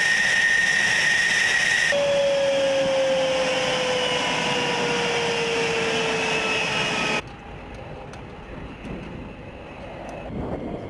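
F-16 jet engine whine on the ground: a steady high whine, then a whine that slowly falls in pitch as the engine winds down. It cuts off abruptly about seven seconds in, leaving quieter wind noise.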